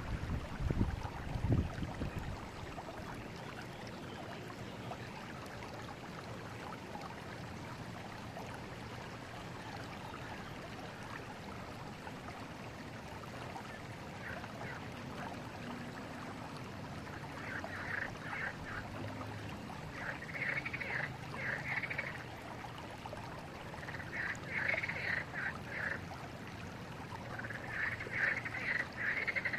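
Steady flow of a forest river, with a low rumble in the first couple of seconds. From a bit past halfway in, animal calls come in four short bursts of rapid, repeated notes.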